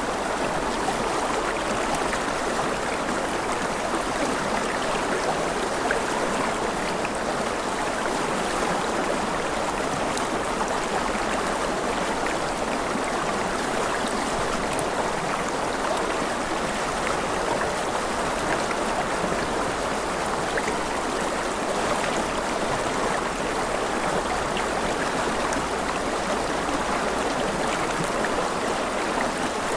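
Flowing water, like a stream, running with a steady rushing sound that does not change.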